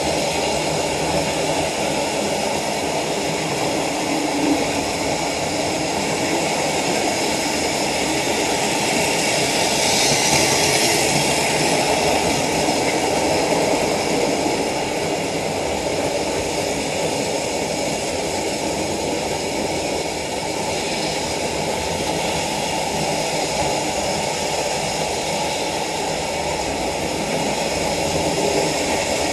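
Hornby Dublo OO-gauge model trains running on the layout track, a steady hum and rattle of electric motors and wheels on rail. It grows louder about ten seconds in as a train passes close by, then settles back.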